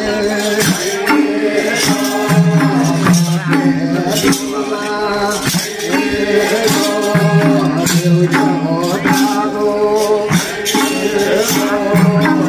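Nepali Bhailo festival music: singing over a repeating melodic phrase that comes round about every two and a half seconds, with sharp percussion strokes throughout.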